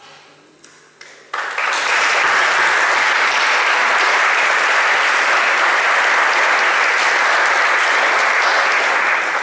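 Audience applauding: a few scattered claps, then full applause from about a second in that dies away near the end.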